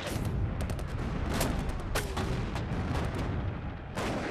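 Rapid, massed rifle fire: many shots in quick, uneven succession over a low rumble, with a falling whine about two seconds in.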